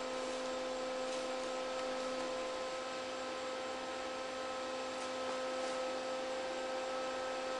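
SIDAC-driven Tesla coil running, its spark discharge giving a steady buzzing tone over a faint hiss, with a few light ticks.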